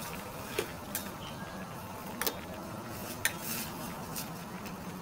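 Plastic spatula stirring noodles in a stainless steel pot of boiling broth, with several sharp knocks as it strikes the side of the pot.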